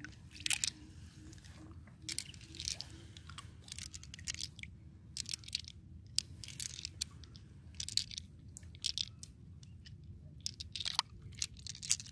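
Clam shells clicking and crunching against each other and the sand as they are dug by hand from wet sand in shallow water and gathered into the palms. Irregular sharp clicks sound over a low steady rumble.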